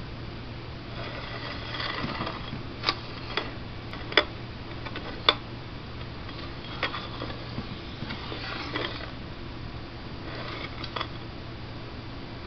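A Technics turntable being handled at the platter: scattered sharp clicks and a few short bursts of scraping over a steady low hum.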